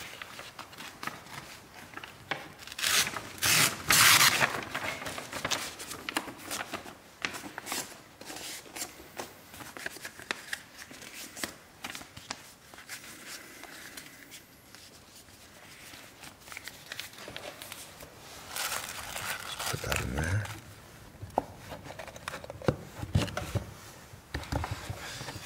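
Paper and a plastic bag being handled: rustling and crinkling, with two loud, sharp bursts about three and four seconds in and another louder stretch of rustling near the end.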